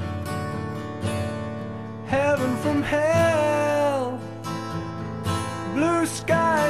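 Background song: acoustic guitar strumming under a sung melody.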